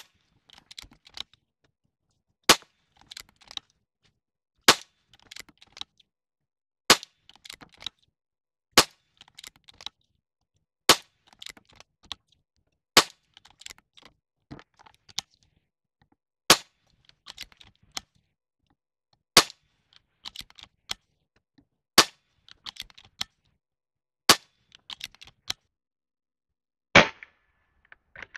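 Niksan Tacto-S .22 caliber unregulated PCP air rifle firing a magazine's worth of shots: about a dozen sharp cracks, evenly paced roughly every two seconds, each followed by a few softer clicks.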